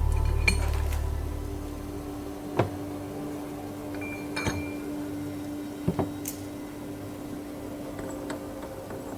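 Parts of a screw-together equipment assembly unit clinking and knocking as it is taken apart and the pieces are set down on a board: about six separate knocks and clinks, a second or two apart, over a faint steady hum.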